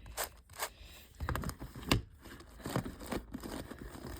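Plastic big cube puzzles being handled and turned: irregular clicks and scrapes of plastic layers, with one sharper click about two seconds in.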